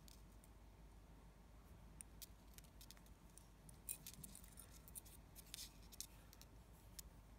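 Faint, scattered ticks and rustles of fingers handling clear monofilament fishing line while tying a knot, over near silence.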